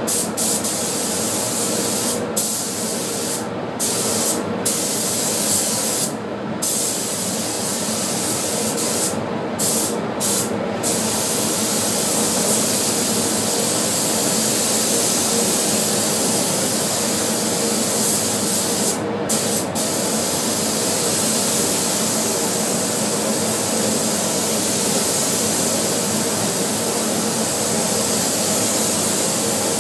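Compressed-air paint spray gun with a gravity-feed cup, hissing steadily as it sprays paint onto a car's body panels. The rush of air cuts out briefly several times in the first ten seconds and once more about two-thirds of the way through, as the trigger is released between passes.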